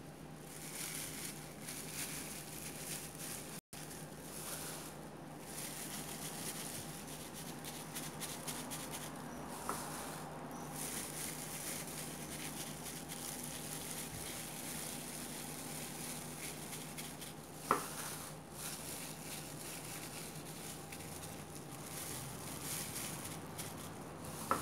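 Soft wet patting and squishing of grated beetroot being spread by hand in a ceramic baking dish, over a steady background hiss and faint hum, with a couple of faint clicks.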